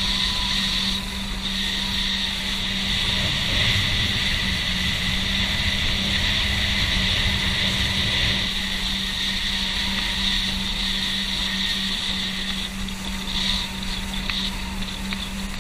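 Motorboat engine running steadily underway with a constant hum, over the rush of water and wind past the moving boat; a low rumble swells for a few seconds in the middle.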